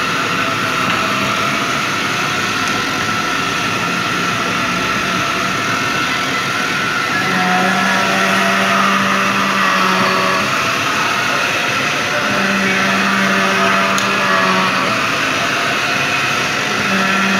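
Lathe running steadily while it works a compressor cylinder liner, with a low hum that comes and goes every few seconds.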